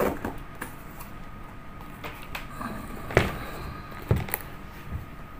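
Handling of a leather safety boot: soft rubbing and a few short knocks as it is turned and moved about, the sharpest knock about three seconds in.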